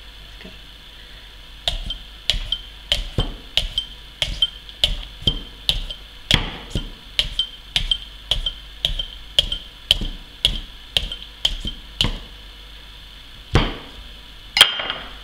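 Knife stabbing repeatedly into a melon, a run of sharp stabs at about two a second for some ten seconds, then two more single stabs near the end.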